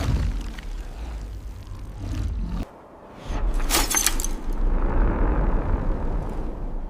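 Cinematic destruction sound effects: a deep rumble that drops away briefly, then a sharp crackling hit about four seconds in, followed by a swelling rush of noise that slowly fades.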